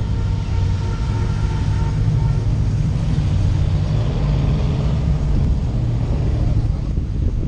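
Car engine running steadily as the car rolls slowly in traffic: a steady low drone.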